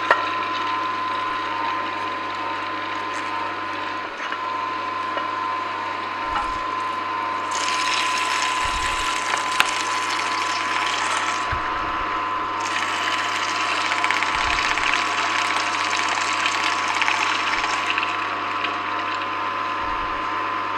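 Angel twin-gear juicer running, its motor and gears giving a steady whine over a low hum as they crush leafy greens. A louder hissing crunch joins in about seven seconds in, breaks off briefly near twelve seconds, and stops around eighteen seconds.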